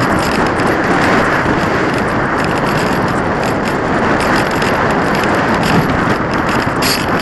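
Wind rushing over the microphone of an action camera riding on an unpowered discus-launch glider in flight, a dense steady noise. Irregular light clicks and rattles run through it.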